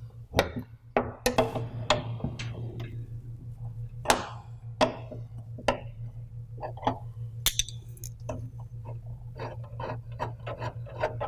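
Metal wrenches clicking and clinking against a fitting on a humidifier's water distribution tray as it is loosened: scattered sharp clicks, one ringing metallic clink, then a quick run of clicks near the end.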